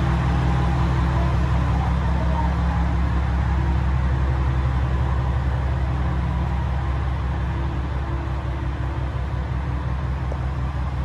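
Diesel railcar's engine idling steadily as it stands at the platform, a deep even drone that fades a little toward the end.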